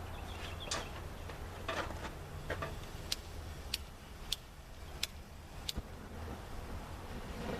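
About eight sharp, separate clicks, roughly half a second to a second apart, over a steady low hum; the later clicks are lighter and higher.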